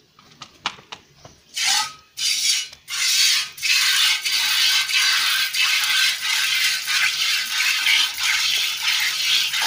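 Milk squirting from a cow's teats into a steel pail during hand milking: a hissing spray that starts as a few separate spurts about a second and a half in, then runs on in quick rhythmic pulses with each squeeze. A few light clicks come before it.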